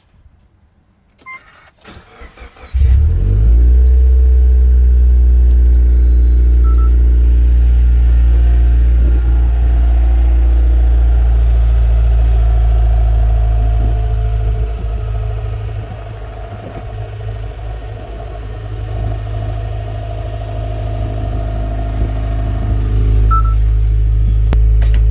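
Subaru Legacy BL/BP engine cold-started: a short beep, brief starter cranking, then the engine catches and runs at idle with a loud, low-pitched noise that dips a little and comes back. The noise is caused by the worn cover complete and flywheel making contact, a fault that is loudest when cold and fades once warm.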